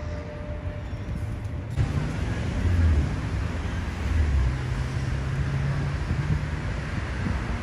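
Street traffic: a motor vehicle's engine running low with road noise, louder from about two seconds in.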